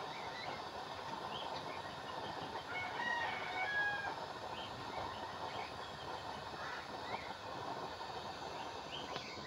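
A rooster crows and chickens cluck, loudest about three to four seconds in, over a steady rushing noise from the waste-oil stove's burner and blower fan.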